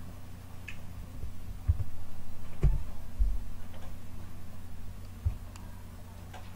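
Scattered computer keyboard and mouse clicks over a steady low electrical hum, with a few dull low thumps, the strongest about two and a half seconds in.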